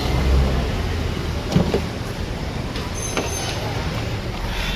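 Toyota Corolla petrol four-cylinder engine idling steadily and smoothly, running on all cylinders now that the faulty No. 2 ignition coil has been replaced. A couple of brief clicks about a second and a half in and about three seconds in.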